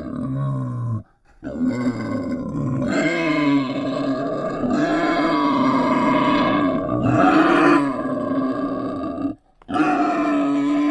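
Wild boar grunting in long, drawn-out runs, broken by two short pauses, about a second in and near the end.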